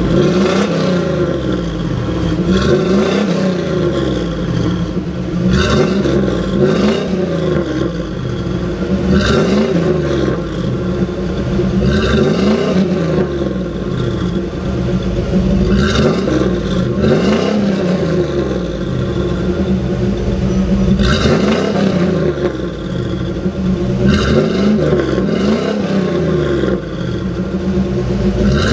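1990 Chevrolet Silverado's 5.7-litre small-block V8 being revved from idle in short blips, rising and falling about every two to four seconds. It runs through a single exhaust with a Black Widow Venom 300 muffler, a high-flow bullet catalytic converter and a tailpipe cut off after the rear hanger.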